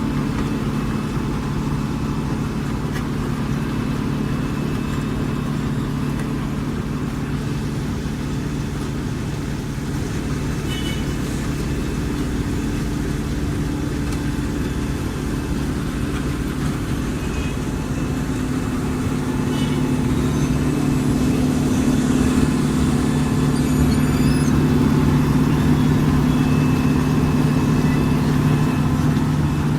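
Heavy diesel engine of a Wirtgen W 100 F asphalt cold milling machine running steadily, growing louder about two-thirds of the way through.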